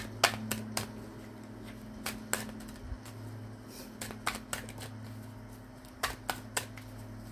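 Tarot deck being shuffled by hand: short clusters of sharp card clicks and slaps, three or four at a time, several times over. A steady low hum runs underneath.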